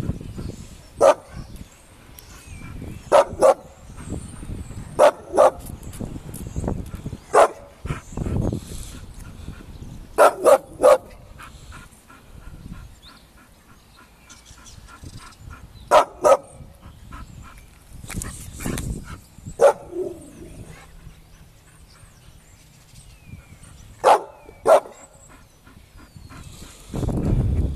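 Bull terrier barking: short, sharp barks every few seconds, some single and some in quick pairs or threes.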